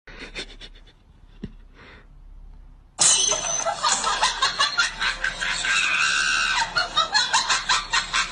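A few seconds of faint rustling, then a sudden loud burst of a person's shrieking laughter and screaming about three seconds in, going on in quick pulses.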